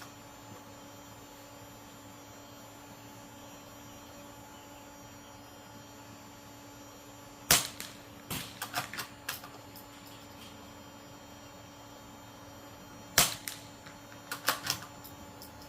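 Two suppressed .22 rifle shots from a Ruger .22 fitted with a Banish 223 suppressor, each a short sharp crack, the first about halfway through and the second near the end. Each shot is followed by several lighter clicks and ticks, over a steady low hum.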